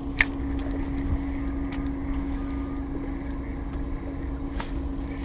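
Steady low hum with wind rumbling on the microphone on a small fishing boat, broken by a single sharp click about a quarter second in and a fainter click near the end.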